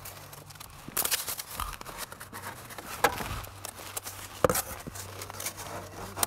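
Pieces of cardboard being slid and pressed down onto a dash cap under the windshield: scraping and rustling handling sounds, with a few sharp knocks about one, three and four and a half seconds in.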